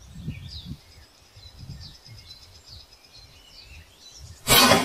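Outdoor ambience with faint birds chirping over an uneven low rumble, broken about four and a half seconds in by a short, loud noisy burst.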